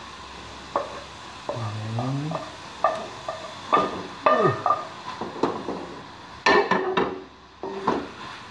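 Wooden spatula scraping and knocking sautéed spice paste out of a frying pan into a wok, then stirring in the wok, over a sizzle. Irregular knocks throughout, with a brief rising squeal about two seconds in and a falling one near the middle.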